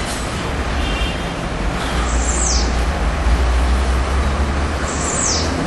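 Steady low outdoor rumble and hiss, with a bird giving two quick, high, falling chirps, about two seconds in and again near the end.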